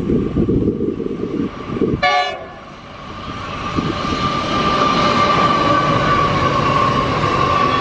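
Wind buffeting the microphone, then a short horn toot about two seconds in. After that, a freight train led by Pacific National NR class diesel-electric locomotives approaches, its engine and wheel noise building to a steady drone with a high whine.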